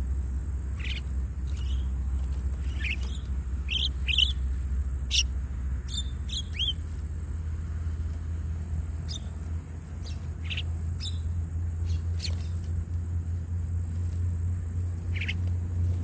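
Javan mynas giving short, high chirps and squawks, thick in the first half and scattered later, over a steady low hum.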